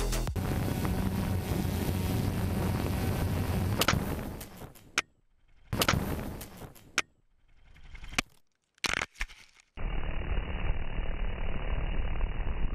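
Onboard drone audio: a steady rush of propellers and wind, then several sharp knocks with near-silent gaps as the drone tumbles and crashes. Near the end a new, duller steady propeller-and-wind rush begins.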